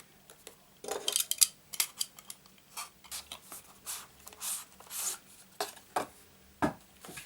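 Utility knife cutting open the seal of a small cardboard box, then the box being handled: short, irregular scrapes and clicks starting about a second in.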